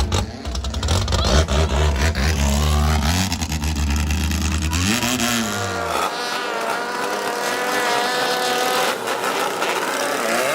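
Thai longtail racing boat engine running hard, its deep note rising and falling with the revs for the first five seconds. About five seconds in the pitch sweeps up and back down, then the deep rumble drops away and a steadier, higher-pitched engine note holds.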